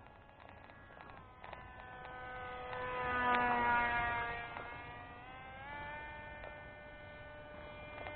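Motor-and-propeller whine of a flat-profile foam RC Sukhoi model plane in flight, its propeller chipped from clipping the ground. A steady pitched drone that dips in pitch about a second in, swells loudest as the plane passes closest around three to four seconds in, then rises in pitch again near six seconds.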